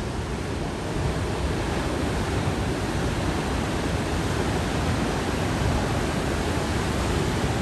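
Steady rushing roar of ocean surf breaking, mixed with wind noise, growing a little louder about a second in.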